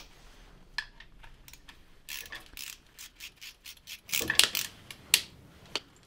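Click-type torque wrench ratcheting in short runs of ticks as a 10 mm hex cover cap on the engine's cylinder head is tightened toward 18 Nm, with a few sharper, louder clicks in the second half.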